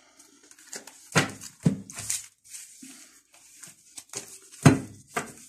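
Tarot cards being gathered up from the table and handled: short slides and taps, with a sharper knock a little after four and a half seconds in.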